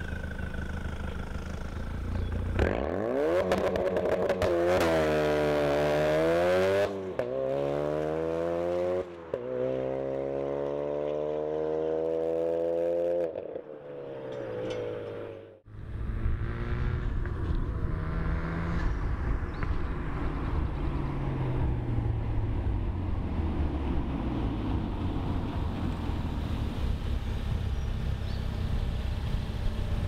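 A 2016 Ford Focus RS's turbocharged 2.3-litre four-cylinder at wide-open throttle through a COBB turboback exhaust with its valve open, launching and pulling away. The pitch climbs in three rising sweeps, dropping at each gear change, then fades. After a cut the car is heard again as a steadier engine and road noise with slowly falling pitch.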